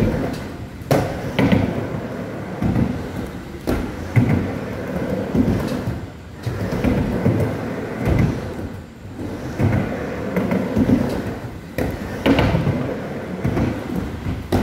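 Skateboard wheels rumbling as the board rolls back and forth across a mini ramp, the rumble swelling and fading with each pass. Several sharp clacks of the board and trucks striking the ramp come through, the loudest about a second in and near the end.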